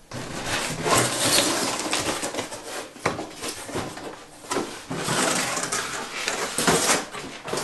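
Stiff cardboard packaging scraping and rustling as the inserts are pulled out of a sink's shipping box, with a few sharper knocks of cardboard against cardboard.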